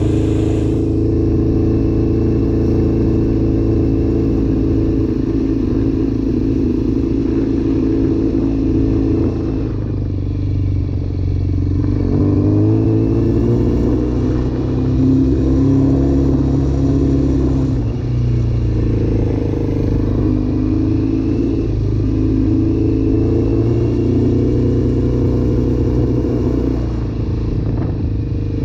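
Yamaha FZR sport bike's inline-four engine running under way. Its note drops about a third of the way in, climbs again, and rises and falls a few more times with throttle and gear changes.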